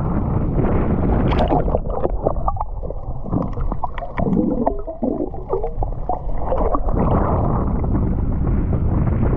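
Water noise picked up by an action camera underwater on a spearfishing dive: a steady muffled rush, with a spell of clicks and gurgling from about one second in to about seven seconds in.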